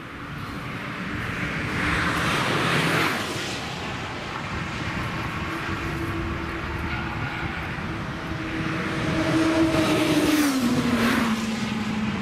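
Cars passing at speed on a racetrack, their engines swelling to a peak about two to three seconds in and again near the end. Around the second peak the engine note drops in pitch as the car goes by.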